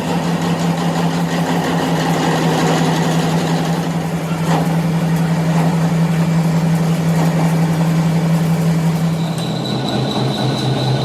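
A workshop machine's motor running steadily with a low hum. About nine seconds in, the hum drops in pitch and a faint high whine comes in.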